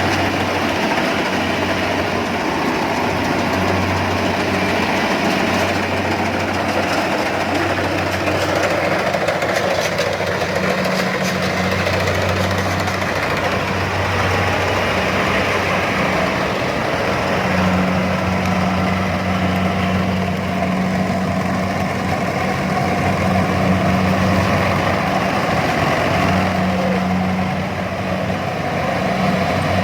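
A machine's engine running steadily for the whole stretch, a low hum that swells and eases in stretches of a few seconds, over a dense mechanical noise.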